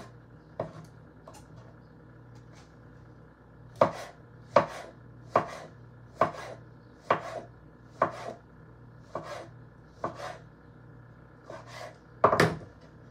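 Kitchen knife slicing tomatoes on a wooden cutting board: sharp knocks of the blade striking the board. After a few light taps, they come about one a second, with the loudest near the end.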